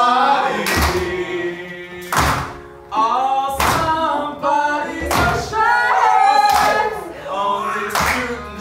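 Live acoustic band playing and singing: a male voice over accordion and strummed acoustic guitars, with a heavy thump on the beat about every second and a half.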